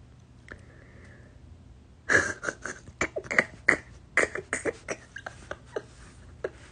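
A woman laughing: a run of short, breathy bursts starting about two seconds in and lasting a few seconds.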